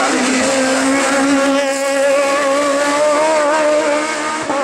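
Racing car engine running hard at high revs, its pitch held nearly steady with a slight waver, then a brief break and change in pitch right at the end, like a gear change.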